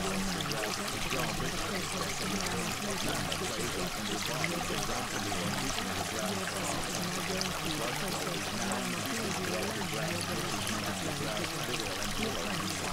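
Steady rush of running water, like a stream, serving as the masking sound of a subliminal affirmations track.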